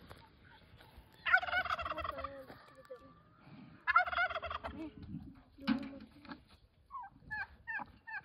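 Domestic turkey gobbling twice, once about a second in and again about four seconds in, each a loud, rapidly warbling call lasting about a second.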